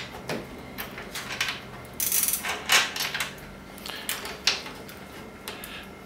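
Scattered metallic clicks, taps and short scrapes of a brass euro lock cylinder and its key being jiggled and pushed in a door's mortice lock, with a brighter cluster of scrapes about two seconds in.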